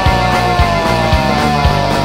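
Rock band playing an instrumental passage with drums, bass and guitars: the drum beat falls about twice a second, and a few held lead notes glide slowly downward in pitch.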